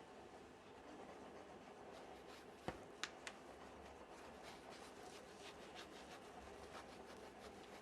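Near silence: faint room tone with a few light clicks and ticks, the sharpest three close together about three seconds in.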